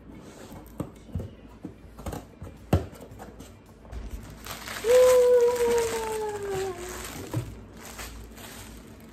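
Plastic shirt packaging crinkling and rustling as it is handled and pulled from a cardboard box. About five seconds in, a long voice-like note slides slowly down in pitch over a couple of seconds; it is the loudest sound.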